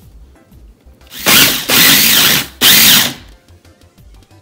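Mini food processor pulsed three times in quick succession, starting about a second in, its blade whirring through strips of lemon peel and granulated sugar to grind them into lemon sugar.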